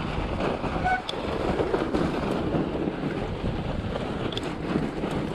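Fat bike rolling along a snow trail: the wide tyres running over packed snow, with steady wind noise on the microphone.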